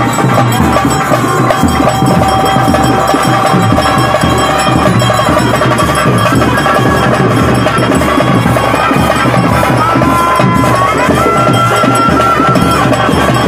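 Loud ritual band music of a Tulu nema ceremony: dense drumming and clanging percussion under a wind instrument holding long notes, stepping up in pitch about eleven seconds in.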